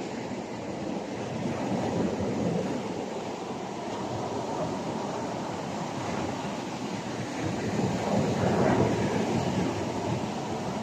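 Surf washing on a beach, with wind rumbling on the microphone; the wash swells louder about eight seconds in.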